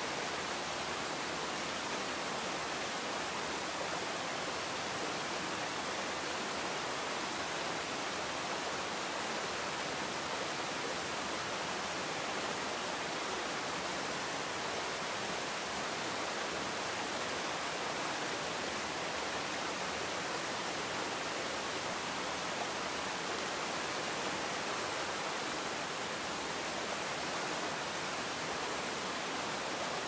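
Waterfall pouring over rocks into a pool: a steady, even rush of falling water.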